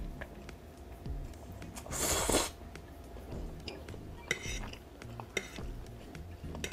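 A metal fork clinks and scrapes against a ceramic plate of instant pancit canton noodles, with wet chewing. A loud slurp of noodles comes about two seconds in.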